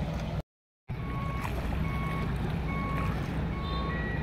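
An electronic beeper sounding short beeps of one pitch, about one a second, over a steady low rumble; near the end a longer, higher beep holds for a couple of seconds. The sound cuts out completely for half a second near the start.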